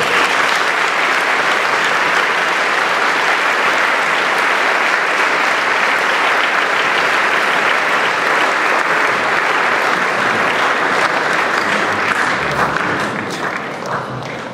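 Audience applauding steadily, the clapping dying away over the last couple of seconds.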